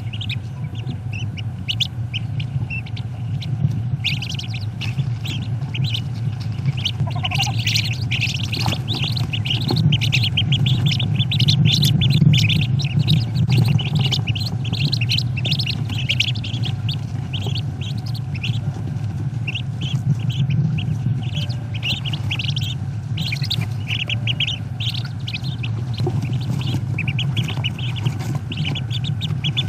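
Many wood duck ducklings peeping in a dense run of short, high calls, over a steady low hum.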